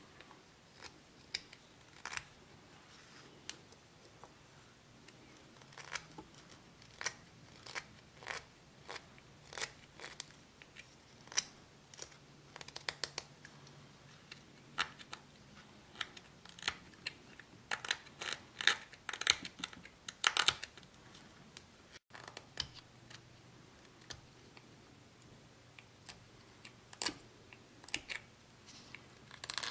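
Small hand chisel paring a tagua nut (vegetable ivory): irregular crisp clicks and short scrapes as chips come away, coming thicker and louder past the middle and thinning out near the end.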